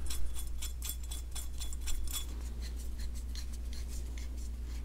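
Small metallic ticks and scrapes, several a second, thinning out after about three seconds, from a throttle stop screw and its coil spring being turned into a Farmall M carburetor's cast throttle body. A steady low hum runs underneath.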